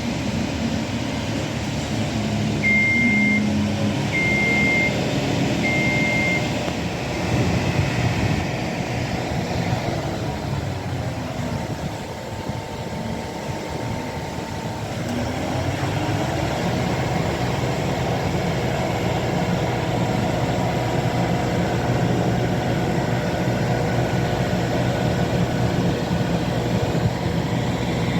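Construction machinery engine running steadily, with three short high-pitched warning beeps, evenly spaced, about three to six seconds in.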